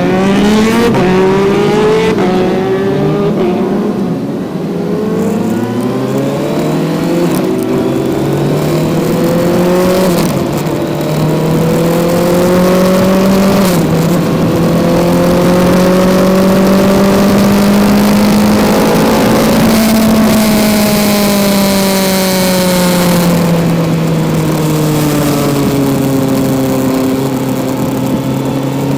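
Kawasaki Z900's inline-four engine at track speed, climbing in pitch under hard acceleration with a sharp drop at each upshift. Later it winds down steadily as the bike slows, with wind rushing past.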